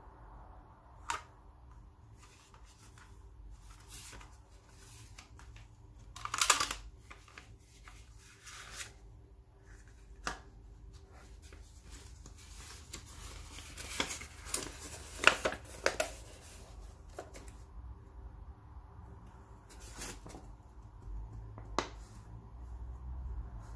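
Hands unpacking a pair of fish-bone pliers: the plastic blister pack and card backing are handled with scattered clicks and crinkles, then a folded paper instruction leaflet rustles as it is opened out. The rustling is busiest about a quarter of the way in and again around the middle.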